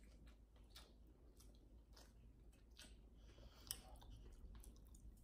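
Near silence with faint chewing and small mouth clicks from people eating sushi rolls, and one sharper click a little over halfway through.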